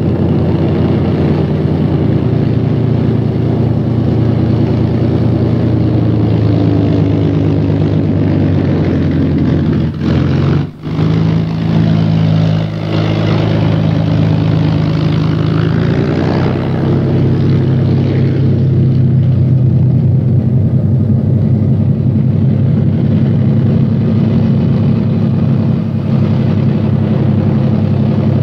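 Lockheed P-38 Lightning's twin Allison V-12 piston engines running as the fighter taxis, a steady propeller-engine drone. The pitch shifts around the middle, and the sound cuts out briefly about eleven seconds in.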